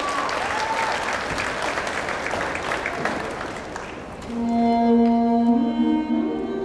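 An audience applauding, with a whoop near the start, dying down; about four seconds in, slow recorded music starts with long held notes.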